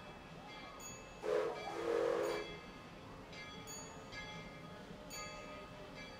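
Steam whistle of Denver & Rio Grande Western 340, a narrow-gauge C-19 class 2-8-0 steam locomotive, sounding two blasts about a second in, a short one and then a longer one, with steam hiss.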